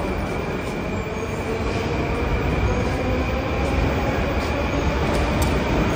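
Moscow metro train running at speed, a loud steady rumble of wheels on track with a thin, steady high wheel squeal running through it, growing slightly louder.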